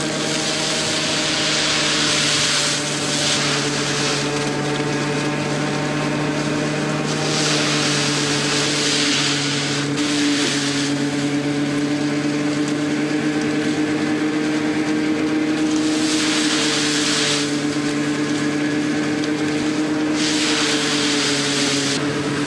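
A 3-foot threshing mill running with a steady hum, and a rushing noise each time sheaves of corn are fed head first into the drum, four times a few seconds apart.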